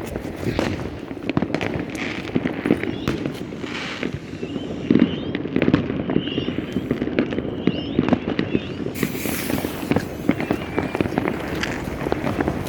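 New Year's fireworks going off: a dense run of bangs and crackling, with a few short whistles in the middle.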